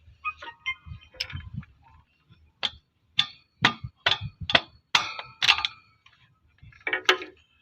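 Metal-on-metal strikes: a run of about seven sharp, ringing taps roughly half a second apart, then a short cluster of knocks near the end.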